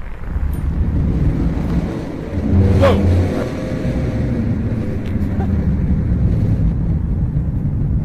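Loud low rumbling drone with several steady low tones layered together, swelling in the first second and holding on; one of the 'strange sky sounds' whose source the listeners cannot place. A person exclaims 'Whoa!' about three seconds in.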